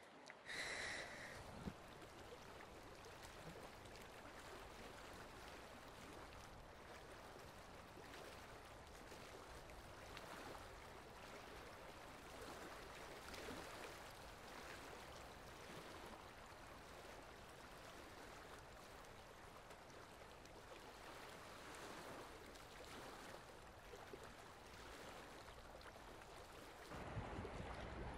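Faint, steady lapping of calm sea water with soft irregular splashes. About a second before the end, a louder low rush of noise comes in.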